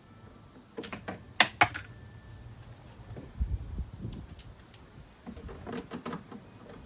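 A scatter of sharp clicks and taps from hands working on car body and taillight parts. There is a loud cluster of clicks about a second in, a dull knock near the middle, and more light clicks after it.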